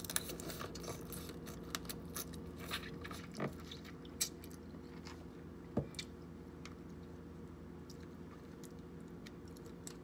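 Eating king crab legs up close: scattered crunches, clicks and chewing, thick for about the first six seconds and sparse after, over a faint steady low hum.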